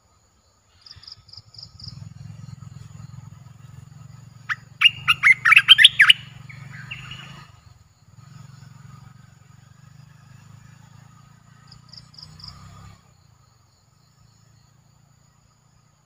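Olive-winged bulbul singing: a quick run of loud notes about five seconds in, then a shorter, softer phrase. Faint high chirps come near the start and again near the end.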